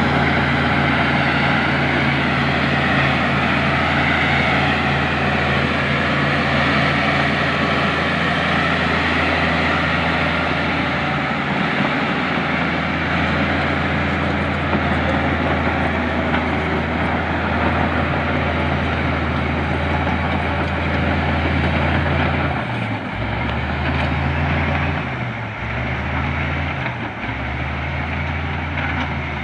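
LiuGong crawler bulldozer's diesel engine running steadily while grading. Near the end its pitch dips and recovers three times.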